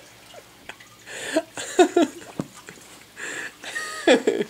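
A man laughing hard in two bouts of breathy, wheezing bursts.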